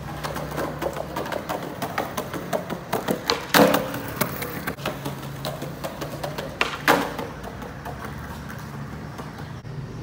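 Skateboard wheels rolling over rough, grit-strewn concrete with a rapid patter of small clicks, broken by two loud sharp cracks of the board on the pavement about three seconds apart: ollie attempts.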